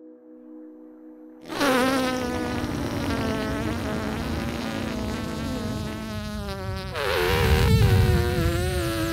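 Loud insect-like buzzing with a wavering pitch starts suddenly about a second and a half in, after faint steady tones. A low rumble joins it and grows louder near the end.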